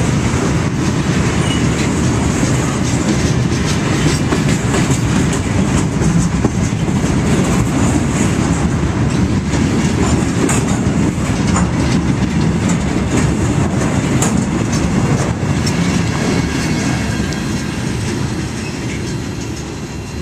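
Empty freight flatcars of a steel train rolling past close by, wheels clacking over the rail joints. The rumble eases off near the end as the train moves away.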